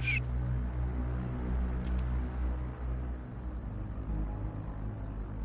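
Insect chorus: one high, steady note that wavers slightly, over a low hum.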